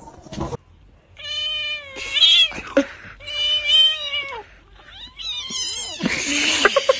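A cat meowing: four long meows of about a second each, bending up and down in pitch, then a harsher, noisier yowl near the end.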